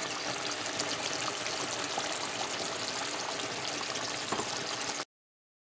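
Mango curry bubbling in its thick sauce in a pot: a steady sizzling crackle with many fine pops. It cuts off suddenly about five seconds in.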